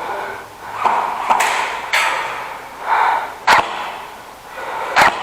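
Airsoft gun fired in single shots, four sharp cracks at uneven intervals over a few seconds, the two later ones the loudest. Between the shots a player breathes hard.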